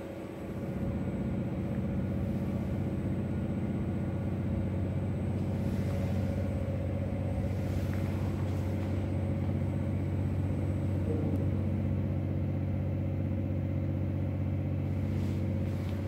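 Lift hoist machinery running with a steady electric hum as the car travels in its shaft, starting up about half a second in.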